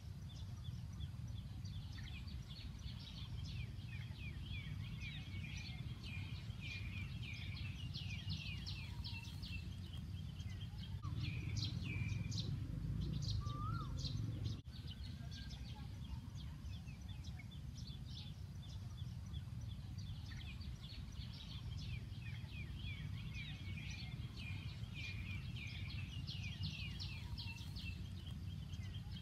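Many small birds chirping and twittering in rapid runs of short notes, over a steady low background rumble.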